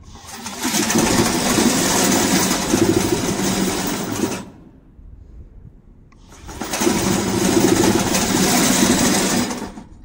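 Brushless electric track drive motors and gearboxes of a remote-control crawler mower running as the tracked machine drives, with a fast mechanical rattle. It runs twice, about four seconds each time, with a short pause of about two seconds between.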